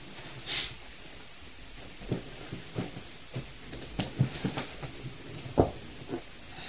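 Irregular series of short knocks and thuds, about a dozen, the loudest about five and a half seconds in, after a brief hiss near the start.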